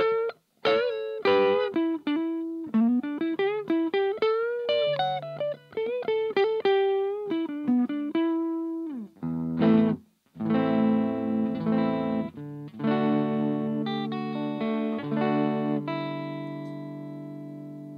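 Electric guitar played through a Little Rebel 2-watt amp kit into a Jensen CR8 speaker, the amp still with its stock clipping LEDs: a single-note lead line with bends and vibrato, then strummed chords from about ten seconds in, the last one left ringing and fading out.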